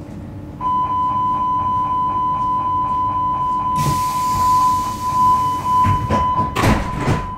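Hamburg DT4 metro train's door-closing warning: a steady high beep with a fast pulse, about five a second. About halfway a hiss of air joins it, and near the end the doors shut with a loud clatter.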